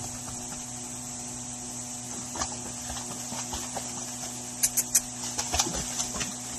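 Water splashing and slapping as a Patterdale terrier paddles across a swimming pool, with a quick cluster of three sharp slaps about two-thirds of the way through and a few more after, over a steady low hum and high hiss.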